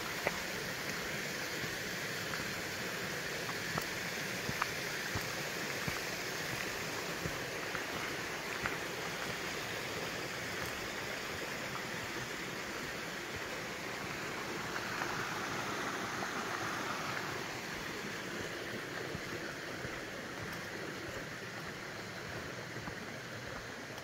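Running water of a stream, a steady rushing hiss that hardly changes, with a few faint ticks here and there.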